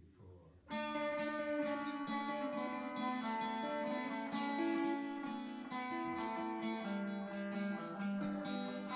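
Guitar music. After a faint start, plucked guitar comes in fully under a second in and plays on at a steady level, with the low notes changing every half second or so.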